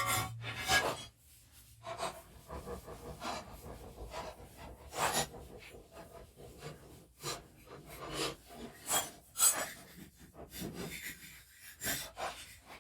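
Irregular clicks, knocks and scrapes of hand tools and metal parts being handled, with no steady rhythm.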